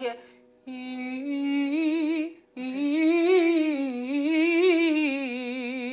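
A woman singing a sustained 'ee' vowel as a singing-lesson vowel exercise. There are two held notes: a shorter one about a second in, then a longer one from about halfway whose pitch rises and falls twice.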